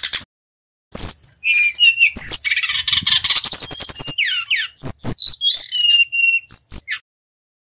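Male brown-chested jungle flycatcher singing a varied run of clear whistled notes and slurs, with a fast buzzy trill in the middle of the phrase. A brief burst of noise comes at the very start.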